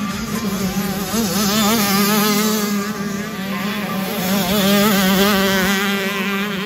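85cc two-stroke motocross bike engine revving up and down with the throttle, its buzzing pitch wavering every second or so.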